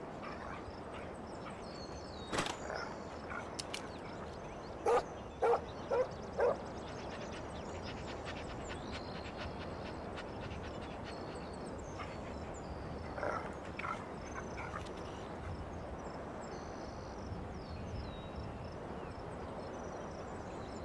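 Dog barking: four short, loud barks in quick succession, then a few softer barks later, over a steady background hiss.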